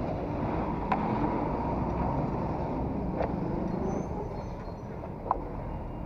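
Motorcycle engine running at idle, a steady low sound with a few small clicks, quieter from about four seconds in.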